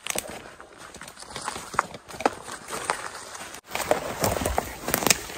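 Footsteps crunching through dry leaf litter and twigs, with irregular crunches and snaps. After a brief break about two-thirds of the way in, closer and louder crunching and rustling as conifer branches brush against clothing and pack.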